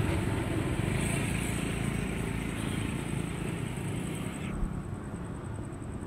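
Diesel-electric locomotive (KAI CC 206 class) running steadily as it pulls away down the line, its engine rumble slowly fading with distance.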